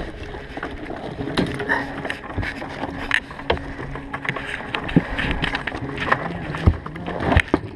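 A boat's engine runs steadily underneath scattered clicks, knocks and rattles from a wire crab pot being handled.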